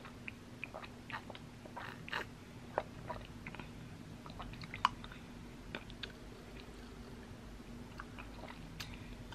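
A person chewing popping boba, whose skins are tough, close to the microphone: faint, irregular soft clicks and mouth sounds, with a couple of louder ones about two and five seconds in.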